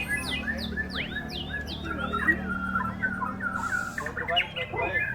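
White-rumped shama (murai batu) in full song: a fast, varied run of short whistles and steep downward-sweeping notes with no gaps. A steady low hum runs underneath and fades about four seconds in.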